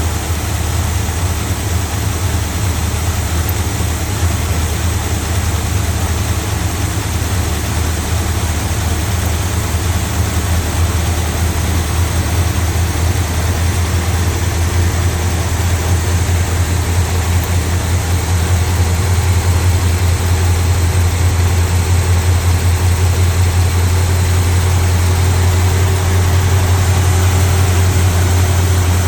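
Engine idling steadily with a deep, even hum, running on a temporary hot-wired ignition; it grows a little louder about two-thirds of the way in.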